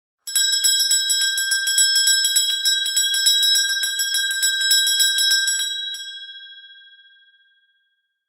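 Small Christmas handbell rung rapidly, several strikes a second, for about six seconds; then the shaking stops and the bell rings on and fades away.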